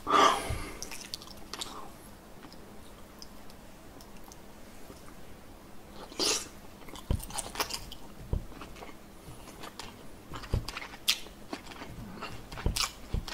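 Close-up wet chewing, biting and lip smacking as a person eats saucy battered sweet-and-sour pork by hand. There is a loud wet mouth sound at the start and another about six seconds in, as fingers are sucked clean of sauce, with short crackling chews between.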